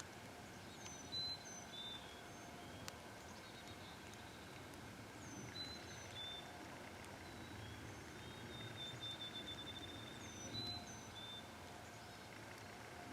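Faint songbirds singing: one bird repeats a short, high, falling phrase about every five seconds, with a thin trill in between, over a low steady hiss.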